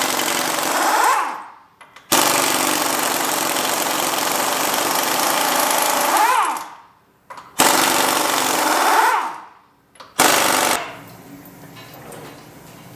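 Pneumatic impact wrench hammering the wheel nuts off a John Deere 6300 tractor wheel, in four bursts that each fade out; the last burst is short, and then it stops about two seconds before the end.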